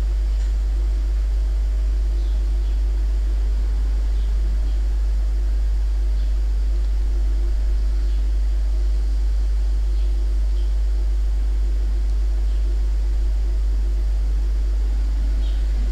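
A steady low hum that does not change, with a few faint short ticks over it.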